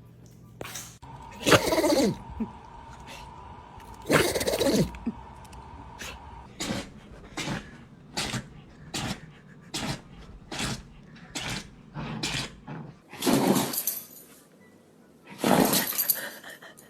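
Dogs sneezing: a few loud, sudden sneezes near the start, then a run of short, quick sneezes about twice a second, and two more loud sneezes near the end.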